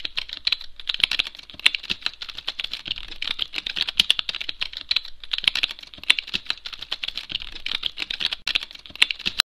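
Fast, continuous typing on a computer keyboard: a dense run of key clicks with a brief pause near the end.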